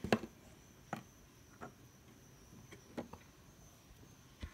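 Scattered light knocks and clicks, about six spread unevenly over a few seconds, the strongest at the start and near the end: handling noise as the phone is moved about around the plastic cage.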